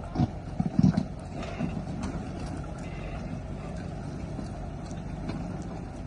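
Suzuki Jimny's engine running steadily while driving off-road, with a few loud knocks and thumps in the first second or so.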